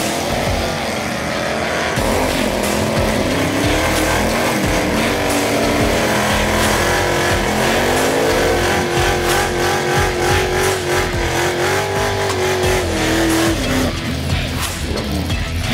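Drag car engines revving in rising and falling surges, then a vintage Ford Falcon drag car's engine held at high revs with tyre squeal through a burnout, the revs dropping off near the end.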